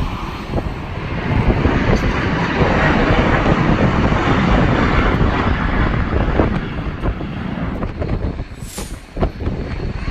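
Jet airliner engines: a loud rushing noise that swells about a second in, holds steady, and fades after about eight seconds as the aircraft passes.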